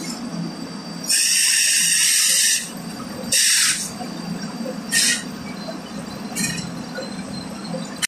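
Silage wrap stretch film being pulled off its roll by hand, in loud bursts of hiss-like noise: one long pull of about a second and a half, then three shorter ones. A steady low machine hum runs underneath.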